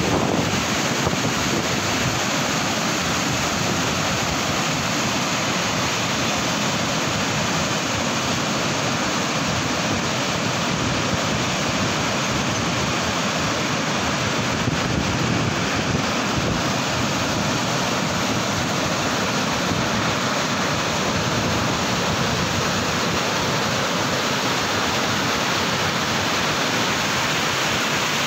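Whitewater mountain river rapids rushing over boulders: a loud, steady roar of churning water.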